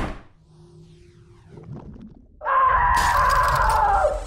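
Cartoon sound effects: a sharp crash-like hit at the start, then about two and a half seconds in a loud held sound with a slightly falling pitch that stops shortly before the end.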